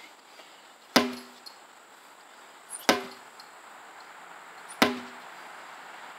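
Sledgehammer strikes landing three times, about two seconds apart, each a sharp hit followed by a short low ringing tone.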